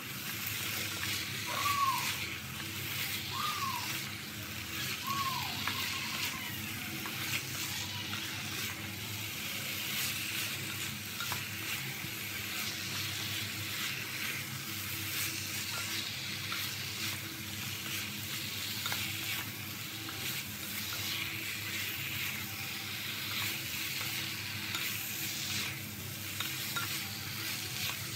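A spatula stirring and scraping chunks of sake fruit (breadfruit) in a hot pot, over a steady sizzle of frying, with many small knocks and scrapes. Three short chirps sound about two seconds apart in the first six seconds.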